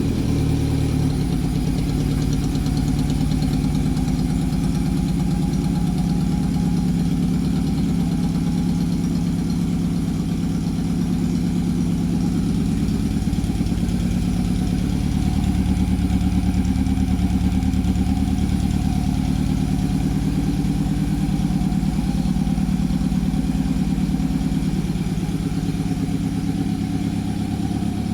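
A 1991 Honda CB750 Nighthawk's air-cooled inline-four engine, with a chopped exhaust, idling steadily just after starting. The idle picks up a little about halfway through.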